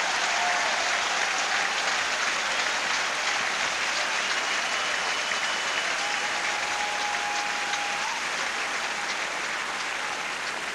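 Tennis stadium crowd applauding after a point, slowly dying down toward the end, with a couple of thin held whistles partway through.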